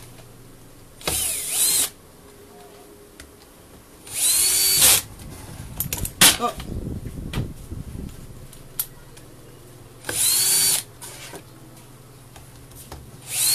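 Handheld power drill with an extension bit driving screws into the demolition hammer's housing in four short bursts, the motor whine rising and falling each time. The screws are run down snug, not yet at final tightness. A sharp clack about six seconds in.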